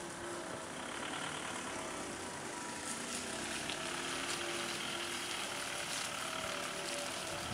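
Steady outdoor background noise with a hum of distant traffic, unchanging throughout.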